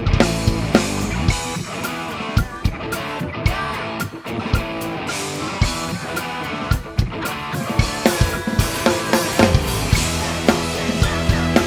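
A live rock band playing: drum kit hits over bass, electric guitar and keyboards.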